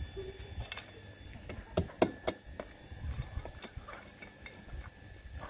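Scattered light knocks and clicks, with a few sharper knocks about two seconds in.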